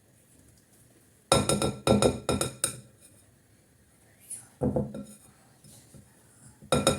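A spoon clinking and scraping against the side of a bowl while grated turnip and icing sugar are stirred together. There is a quick run of about five ringing clinks, then a single one, then a few more near the end.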